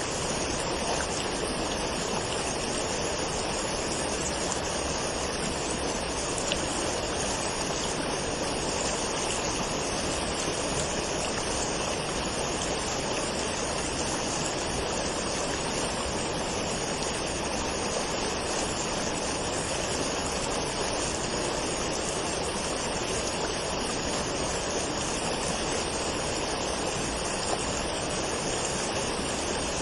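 Waterfall: water falling and rushing in a steady, unbroken noise.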